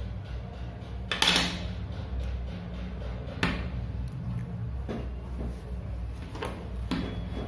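Sharp knocks on a laptop adapter's plastic case, struck to break open its sealed seam: one loud knock about a second in, another a couple of seconds later, and two lighter ones near the end.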